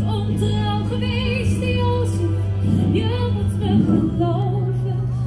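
A woman singing with vibrato over sustained backing music in a live stage performance of a musical-theatre song.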